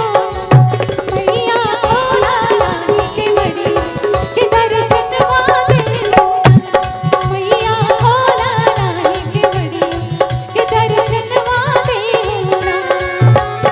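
Live Chhath devotional folk song music: a steady drum beat under a wavering, ornamented melody line.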